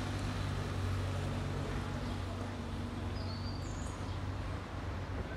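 Outdoor ambience: a steady low hum of distant traffic, with a bird chirping twice briefly a little past the middle.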